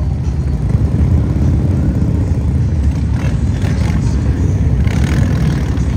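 Motorcycle engines running in street traffic: a loud, steady, low engine sound without breaks.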